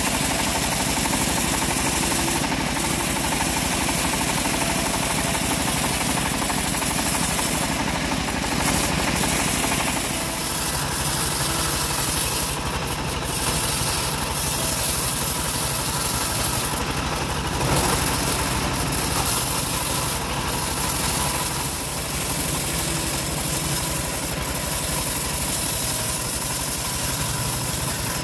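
Homemade log bandsaw mill running steadily, its drive engine pulsing evenly, as the blade saws through a teak or acacia log. The sound changes character about ten seconds in.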